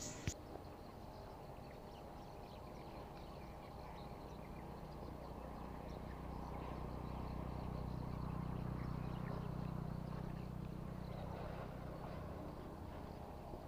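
Faint low hum that swells in the middle and fades again, over quiet outdoor ambience, with a couple of soft clicks at the very start.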